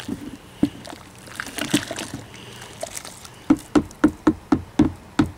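Wooden paddle stirring a thick all-grain oatmeal stout mash in a cooler mash tun, with wet sloshing. Boiling water has just been stirred in to raise the mash temperature. Near the end comes a quick run of about eight knocks, about four a second.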